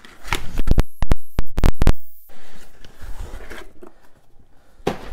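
Cardboard packaging box being opened by hand, with a run of sharp, loud knocks and scrapes between about one and two seconds in. Softer rustling and handling follow as the plastic warning lamp comes out.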